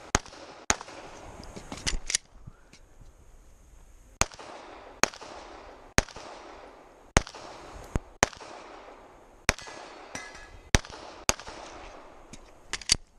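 Glock pistol firing a string of about fifteen shots, mostly single shots half a second to a second apart with a few quick pairs, including one near the end; each shot has a short ringing tail.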